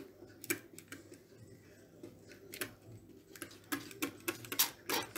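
Plastic trigger spray bottle being pumped over and over, an irregular run of clicks and short spray hisses that comes faster in the second half. The sprayer is faulty and sputters rather than spraying evenly.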